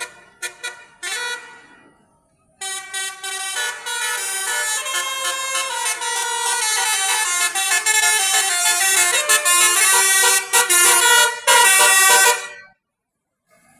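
Basuri telolet multi-tone horn on a tour bus playing a tune: a few short toots, a brief pause, then about ten seconds of stepping, changing notes that stop suddenly near the end.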